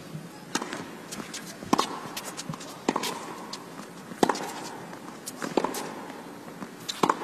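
Tennis rally of baseline groundstrokes: racket strikes on the ball come about every second and a quarter, with quieter bounce clicks between them.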